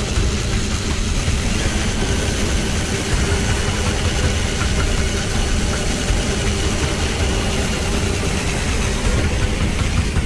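Power drill running steadily under load, its bit boring a hole into aluminium square tubing, a pilot hole for tapping 10-24 threads.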